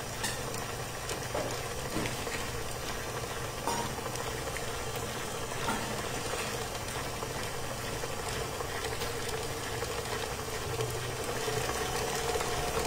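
Electric stand mixer running steadily, its flat paddle beating butter and eggs in a stainless steel bowl, with a few faint clicks.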